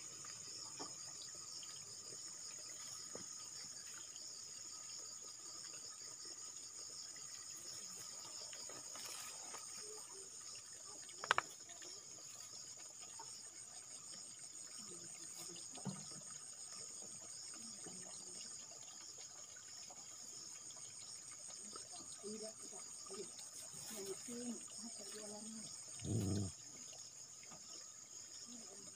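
Steady, high-pitched chorus of insects trilling without a break. A sharp click sounds about eleven seconds in, and a brief low thump comes near the end.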